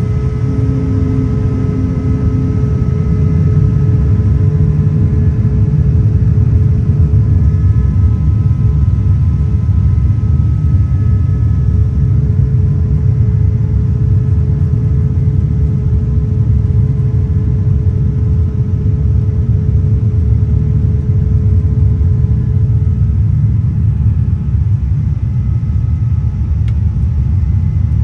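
Airbus A350 cabin noise in flight: a steady, loud rumble with a few faint steady tones over it, the strongest of which fades out about 23 seconds in.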